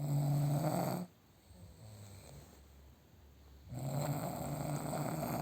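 Snoring during sleep: two long snores, one at the start and a second about three and a half seconds in, with quieter breathing between.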